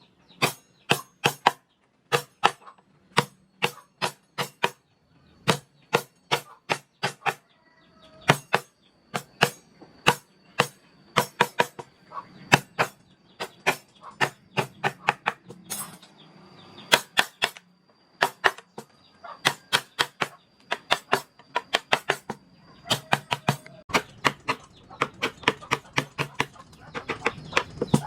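Mallet striking a carving chisel into wood: a steady run of sharp, irregular knocks, about two to three a second.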